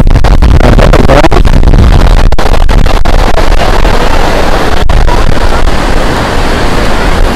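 Strong sea wind buffeting the microphone: a loud, steady low rumble.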